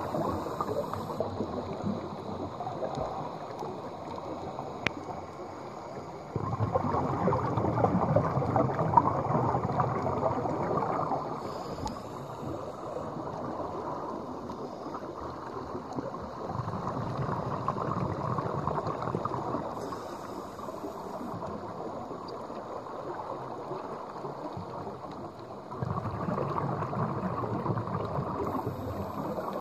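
Scuba diver's regulator heard underwater: stretches of bubbly, rushing exhaust noise a few seconds long, three of them about ten seconds apart, over a steady wash of water noise.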